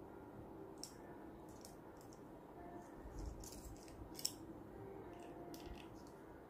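Small scattered clicks and scrapes of a screwdriver and plastic and metal kit parts being handled while a shock absorber is screwed onto its plastic mount, the sharpest click about four seconds in, over a faint steady hum.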